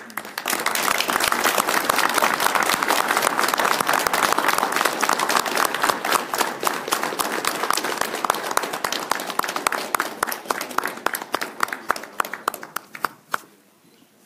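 Audience applauding: dense clapping starts about half a second in and holds steady, then thins to scattered single claps and stops about a second before the end.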